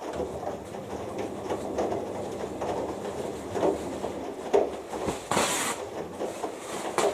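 Two front-loading washing machines in the main wash, their drums tumbling wet laundry with repeated soft thumps and water sloshing. There is a brief hiss about five seconds in.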